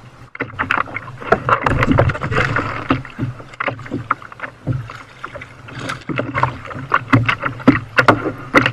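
Choppy sea water slapping and splashing against a plastic sit-on-top kayak, with many irregular knocks and clicks. Near the end the landing net splashes into the water.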